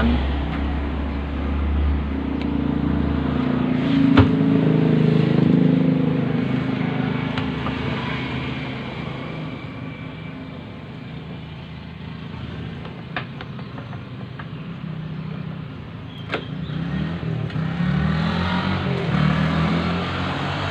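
Motor vehicles running past, their engine sound swelling about four seconds in and again near the end, with a few sharp clicks in between.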